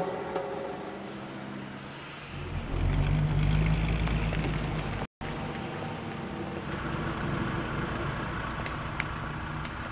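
Old truck's engine running. A low rumble grows louder about two seconds in and cuts out for an instant halfway, then the engine carries on more quietly.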